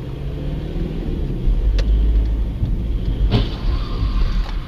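Car engine and road noise, a steady low rumble, with two sharp clicks or knocks, one a little under two seconds in and a stronger one at about three and a half seconds.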